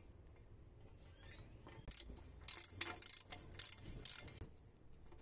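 Cartridge bottom bracket being threaded by hand into a bicycle frame's bottom bracket shell: a run of sharp metallic clicks and scrapes from the threads and hands, starting about two seconds in and stopping shortly before the end.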